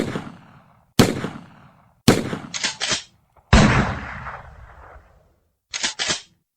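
Recorded gunshots: two single shots about a second apart, then a quick burst of three, a heavier shot with a long echoing tail, and a quick pair near the end.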